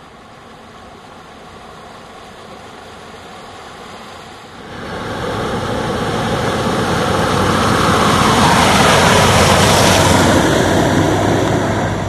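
Truck driving through deep floodwater on a road, its tyres throwing up spray: a loud rushing wash of water over the engine's run, starting suddenly about four and a half seconds in, building as the truck comes closer and easing off near the end.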